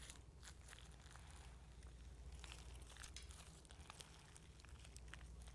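Faint, irregular sticky crackling and squelching of jelly cube slime being kneaded by hand, with body lotion being worked in, over a low steady hum.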